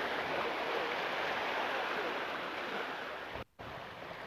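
Surf washing over shoreline rocks: a steady rushing hiss of breaking waves, broken by a sudden brief gap about three and a half seconds in.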